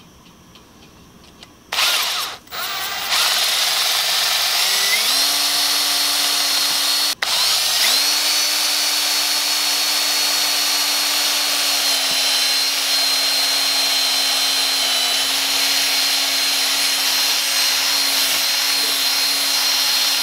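Cordless drill boring into a rubber piece held in a bench vise. After a short first burst it runs on, climbing to full speed about five seconds in, stops for a moment near the seventh second, then runs steadily under load.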